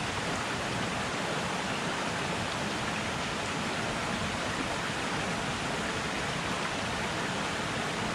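Shallow mountain stream rushing steadily over rocks in a riffle: an even, unbroken water noise.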